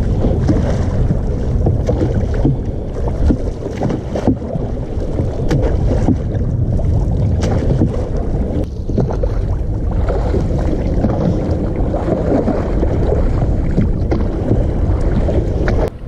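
Wind buffeting the microphone over water sloshing around a small oar-rowed wooden fishing boat, with no engine. Scattered short knocks come from the wooden oar working against its rope-lashed thole pin.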